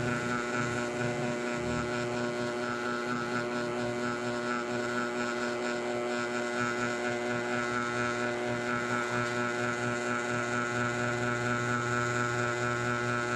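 Mini ceiling fan running noisily, a steady hum with a higher whine over it that holds unchanged.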